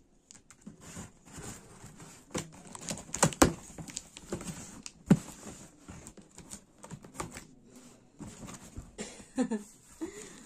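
Scissors snipping through packing tape on a cardboard box, with crinkling tape and cardboard being handled; a series of irregular sharp clicks, the loudest about three and five seconds in.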